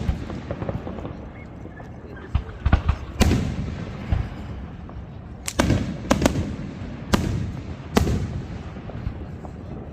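Fireworks exploding: a string of about eight sharp bangs, several close together, each followed by a brief rumbling echo.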